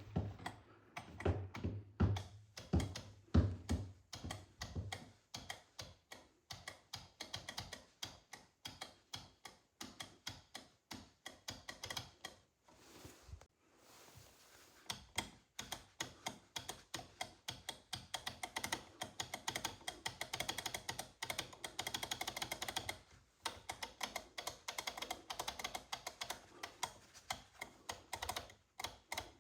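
Wall light switch flipped on and off rapidly, a fast run of sharp plastic clicks, several a second. Low thuds sound under the clicks in the first few seconds.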